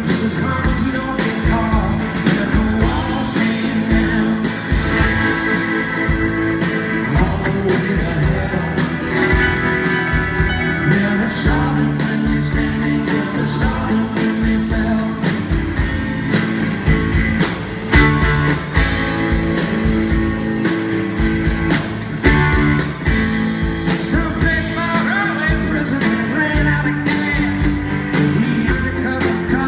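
Live rock band playing: electric and acoustic guitars, electric bass, keyboards and a steady drum beat, with a male lead vocal.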